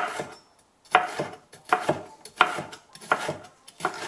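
Kitchen knife slicing a bell pepper into strips on a wooden cutting board: about six evenly spaced cuts, each ending in a sharp knock of the blade on the board.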